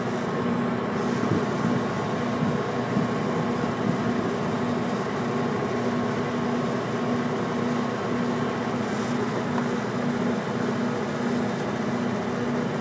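Coldsweep induction stripping equipment and the generator that powers it running with a steady mechanical hum. A low tone in the hum cuts out and returns irregularly every second or two while the induction head is worked over a coal-tar-coated steel tank lid.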